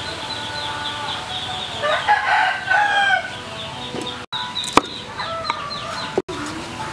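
A rooster crows about two seconds in, one call lasting just over a second, with chickens clucking and quick high chirps around it.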